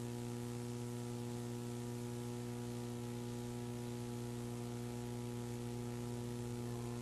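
Steady electrical mains hum with several overtones over a layer of hiss, with no programme sound: the blank stretch of an archival broadcast tape recording.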